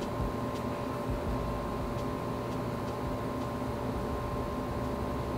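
Steady background hum with a few constant tones over a low rumble, broken by a few faint light ticks.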